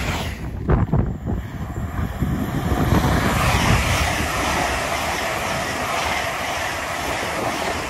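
LNER express passenger train passing at speed under the overhead wires: a steady rush and rumble of wheels on rail, with a few sharp clacks about a second in.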